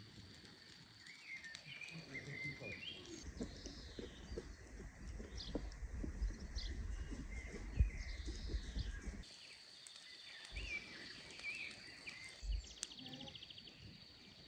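Birds chirping in short calls over a steady high insect buzz. A low rumble with scattered ticks runs through the middle for about six seconds, then drops away.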